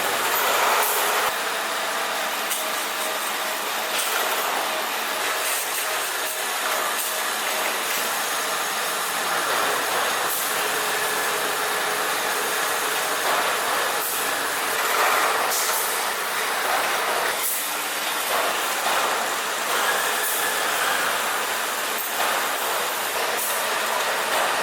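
Tire-recycling machinery running: a steady mechanical clatter and scraping with a faint steady hum and occasional sharp knocks.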